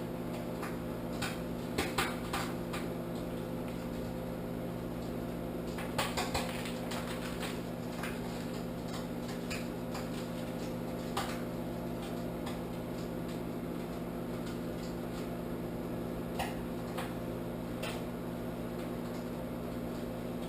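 Microwave oven running with a steady hum, with a few scattered light clicks and knocks over it.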